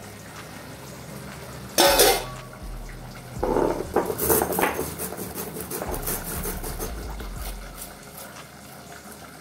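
Knocks, clatter and scraping on a wet stone grinding slab as it is wiped by hand and roasted fenugreek seeds are put on it for crushing. The loudest knock comes about two seconds in, followed by a run of smaller clicks and scrapes.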